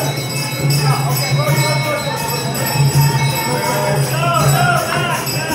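Music with a low steady drone and jingling bells, with voices rising over it in the last second or so.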